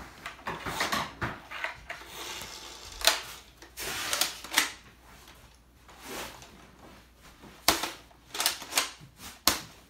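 Plastic toy blaster being handled and lifted out of its cardboard box packaging: irregular clicks, knocks and rustling.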